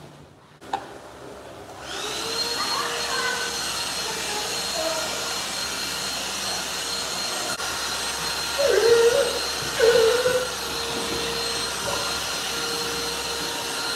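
Vacuum cleaner switched on about two seconds in, its motor whining up to a steady run and staying on as the mats are cleaned.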